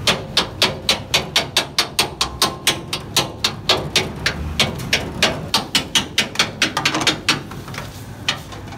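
Quick, even knocks, about four a second, thinning to a few scattered knocks after about seven seconds.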